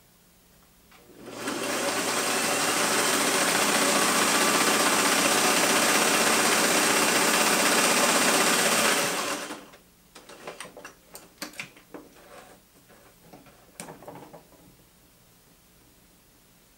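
Vintage Singer sewing machine running steadily at speed for about eight seconds, stitching a zigzag seam through cloth, then stopping. A string of light clicks and handling noises follows as the fabric is taken out from under the presser foot.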